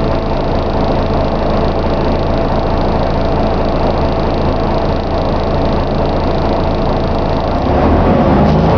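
Scania N113 double-decker bus's six-cylinder diesel engine running, heard from inside the passenger saloon: a steady hum with a thin whine over it. Near the end the engine note rises and grows a little louder.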